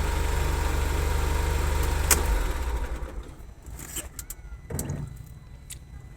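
A vehicle engine idles steadily, running after a no-start repair. About two seconds in there is a click and the engine shuts off. A few light clicks and knocks follow.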